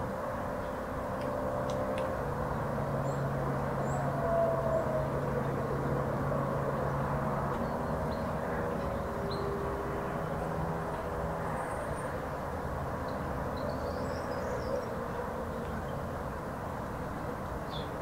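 A steady engine drone with a low hum that swells a little in the middle, and a few faint, short, high bird chirps scattered through.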